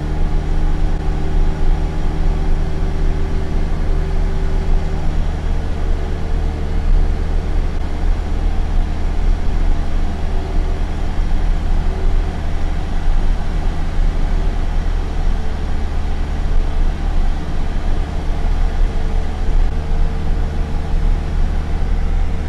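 Steady drone of a single-engine light aircraft's piston engine and propeller in flight, heard from inside the cabin.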